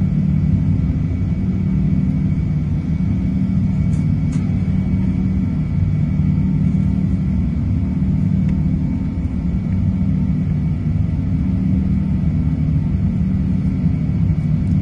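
Jet airliner engines heard from inside the passenger cabin while climbing after takeoff: a steady, loud low drone with faint steady tones above it.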